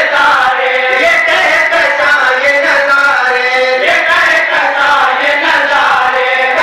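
Male voices chanting a melodic recitation together into a microphone, amplified and loud.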